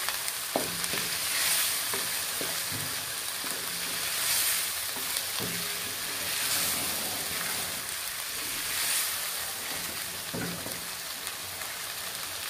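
Soaked white beans (black-eyed lobia) sizzling in oil and tomato masala in a non-stick wok as they are stir-fried, with the wooden spatula scraping and tapping against the pan now and then. The sizzle swells with each stir.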